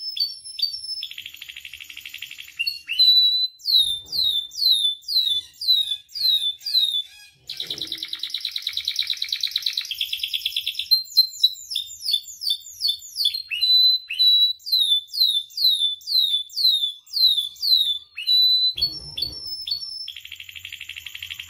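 Domestic canary singing: runs of quick repeated downward-sweeping notes, broken by long, very fast rolling trills about a second in, at around eight seconds, and near the end.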